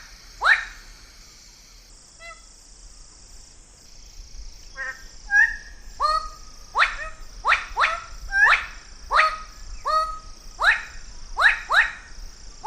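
Bird-of-paradise giving loud, harsh, honking calls, each sweeping down in pitch. After a short lull with a few softer notes, the calls come in a quick series of about ten, under a steady high hiss.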